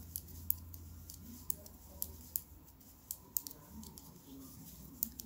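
Knitting needles clicking lightly and irregularly, a few clicks a second, as stitches are worked and decreased.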